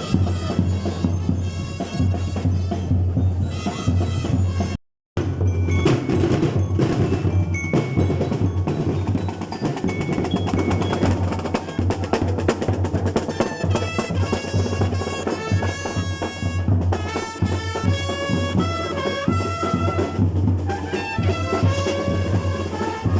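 Parade marching band playing: steady drumming with snare rolls and a melody carried by pitched instruments over it. The sound cuts out briefly about five seconds in.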